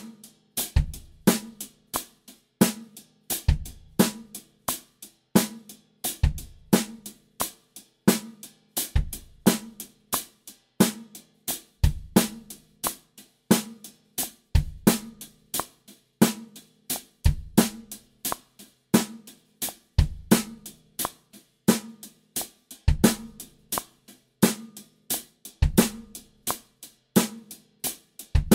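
Drum kit playing a steady groove: eighth notes on the hi-hat, accented snare backbeats on 2 and 4, and a single bass drum note in each bar that falls on a different sixteenth note as the permutation exercise moves on.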